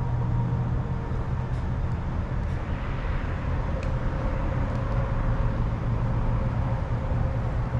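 Steady low hum of an idling vehicle engine, running evenly without revving.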